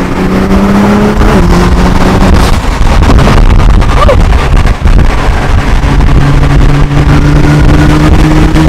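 Nissan GT-R's Alpha 7-tuned twin-turbo V6 at full throttle, heard from inside the cabin. The engine note climbs, drops sharply at a quick upshift a little over a second in, then gives way to a loud low rumble, and climbs again near the end.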